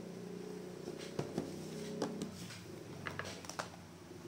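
Cardboard gift box and paper inserts being handled on a table: a series of sharp taps and knocks from about a second in, over a steady low hum.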